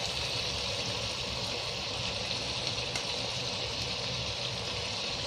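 Chicken pieces frying in ghee in a wide pan on a gas stove: a steady, even sizzle with a low hum underneath.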